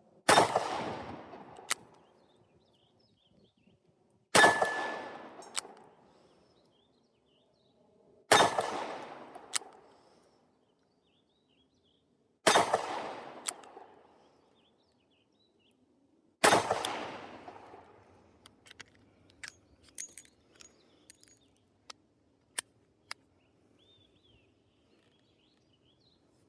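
Five shots from a Smith & Wesson 637 Airweight .38 Special snub-nose revolver, about four seconds apart, each followed by a fading echo, which empties its five-round cylinder. A scatter of small sharp clicks and taps follows.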